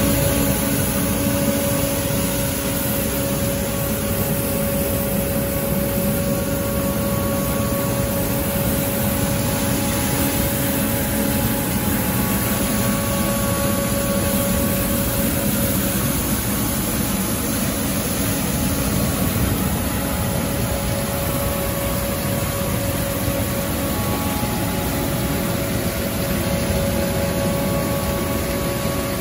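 Truck-mounted street sweeper running, its gutter broom spinning and brushing along the curb over milled asphalt. It makes a steady engine drone with a constant whine above it.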